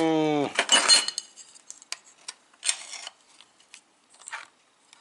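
A short, steady hummed "mmm" from a man, then scattered metallic clinks, taps and short clatters as an OS Max 21 model engine and its metal mount fittings are handled on a workbench.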